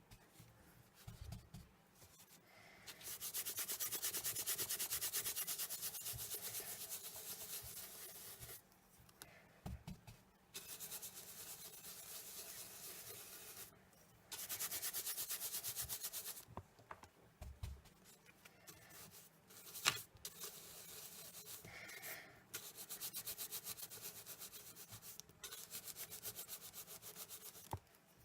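An ink blending tool scrubbed over heat-embossed cardstock in quick back-and-forth strokes. It comes in several stretches of a few seconds each, with short pauses. There is one sharp click about twenty seconds in.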